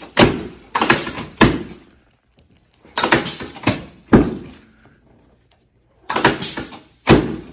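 Chiropractic adjustments on a treatment table: a series of sudden thuds and cracks, each trailing off in a short rustle. They come in three groups, three, then three, then two.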